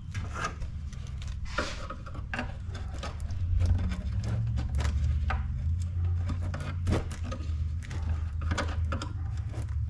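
Irregular plastic clicks, taps and scrapes as a mounting pin is pried off a Ford Bronco tail light housing by hand, over a steady low hum.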